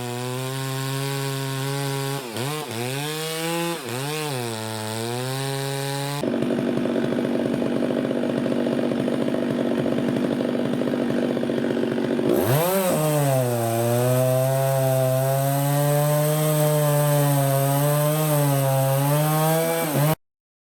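Two-stroke chainsaw running on the Monterey cypress trunk. Its pitch dips twice, then from about six seconds it changes to a rougher, louder note while it bites into the wood. After that it runs on with its pitch swinging, and it cuts off suddenly near the end.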